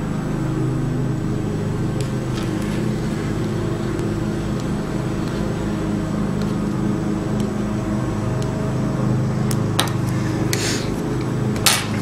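A steady low mechanical hum made of several even tones, with a few short snips near the end as small scissors cut a thin, flexible clear sheet of cast Realistic Water.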